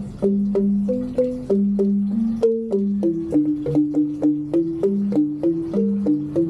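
Rindik, the Balinese bamboo xylophone, played with mallets: a steady run of struck, ringing notes, about three a second, with a lower part under a higher melody.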